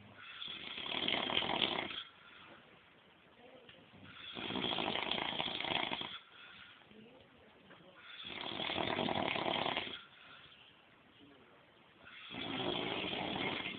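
A sleeping man snoring loudly and evenly: four long, rasping snores of about two seconds each, one roughly every four seconds, with quiet breathing between them.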